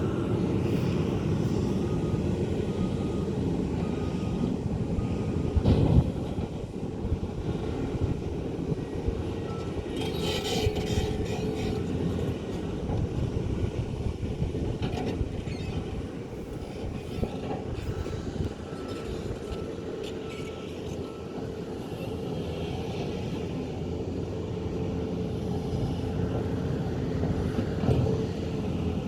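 Excavator diesel engine running steadily under load while digging and loading soil. There is a sharp knock about six seconds in and a burst of clattering about ten seconds in, with faint repeated beeping at times.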